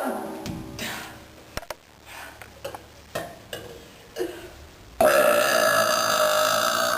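A person burping: the tail of one burp at the start, then a long, loud, steady belch that starts suddenly about five seconds in and holds for about two seconds.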